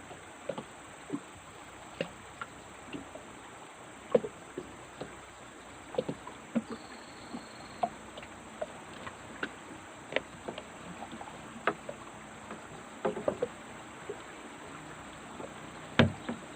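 Flooded river ambience: steady water noise with a continuous high hiss above it, broken by scattered light clicks and knocks at irregular intervals, the sharpest one near the end.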